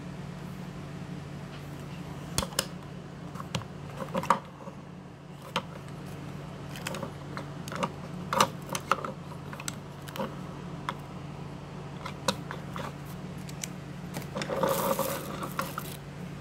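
Small plastic clicks and taps from handling a toy figure while pushing a tiny plastic katana into its hand, with a short rustle near the end. A steady low hum runs underneath.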